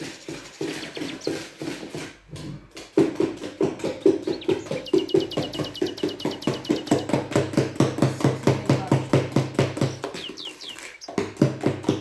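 Metal spoon beating batter by hand in a bowl: rapid, even strokes knocking against the bowl, about four a second, picking up after a short pause about two seconds in. A small bird chirps in a quick series midway and twice more near the end.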